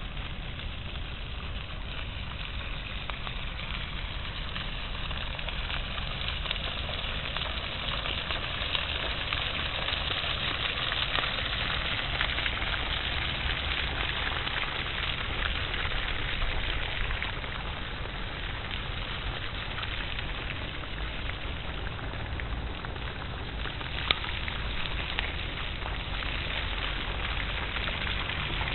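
Steady outdoor noise: a hiss with a low rumble underneath, a little louder in the middle, and one sharp click about 24 seconds in.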